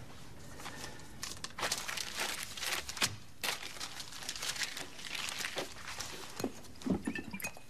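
Paper rustling and crinkling as it is handled in the hands, in irregular crackly bursts.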